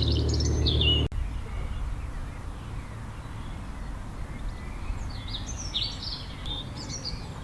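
Small birds chirping in short, quick phrases, twice, over a faint outdoor background. A steady low hum runs under the first second and cuts off abruptly.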